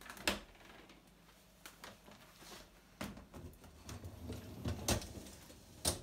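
Beko dishwasher door being opened: a sharp click of the latch just after the start, then several knocks and rattles as the door is lowered and the wire lower rack is rolled out.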